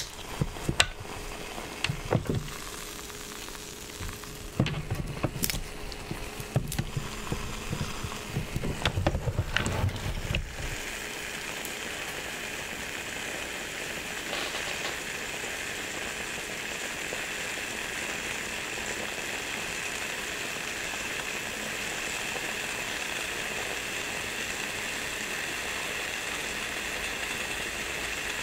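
Croissant dough sizzling inside a closed rotating waffle maker: a steady, rain-like hiss and crackle that settles in about ten seconds in. Before that come scattered clicks and low knocks from the waffle maker being handled and turned over.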